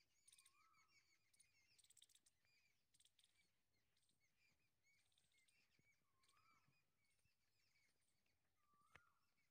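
Near silence, with very faint repeated bird chirps in the background.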